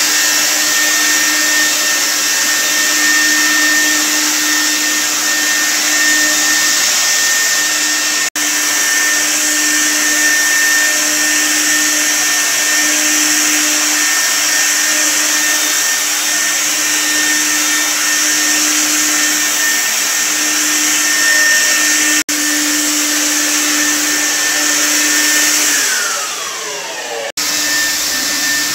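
Handheld electric disinfectant fogger running steadily: a motor hum and whine over the hiss of the spray. Near the end the motor winds down with a falling pitch, then the sound cuts and the fogger is running again.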